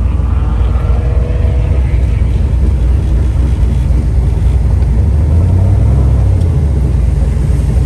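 Car engine running at low revs as the car moves slowly, a loud, steady low rumble.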